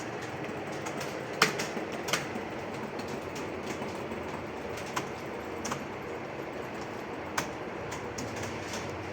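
Many computer keyboards being typed on at once in a steady, dense clatter of keystrokes, with a few louder key strikes standing out.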